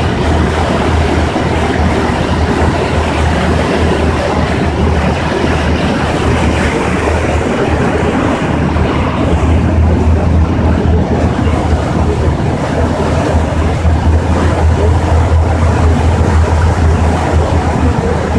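Passenger ferry under way: a steady low engine drone mixed with the noise of water and wind.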